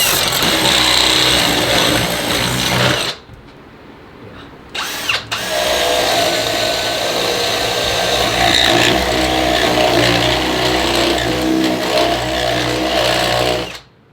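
Power drill running under load in two runs: one of about three seconds, then, after a couple of short blips, a longer run of about eight seconds that stops suddenly.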